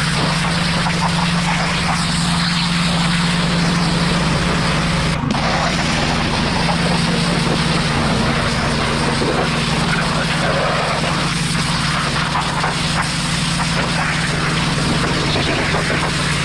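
Pressure washer running, its motor droning steadily under the hiss of the high-pressure water jet hitting the car's bodywork. The spray cuts out for an instant about five seconds in.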